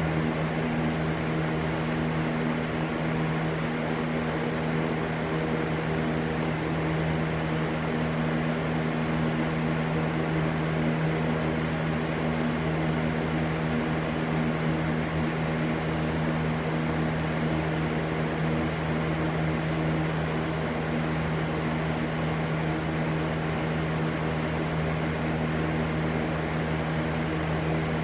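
Steady, unbroken rushing white noise with a constant low hum underneath.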